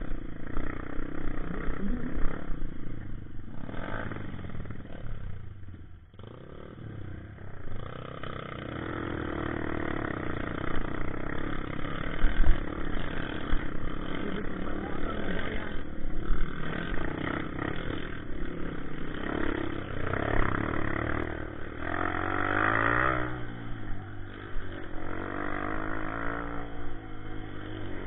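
Honda CRF dirt bike's engine running under a varying throttle on a rough trail, the revs rising and falling. It drops off briefly about six seconds in, then picks back up.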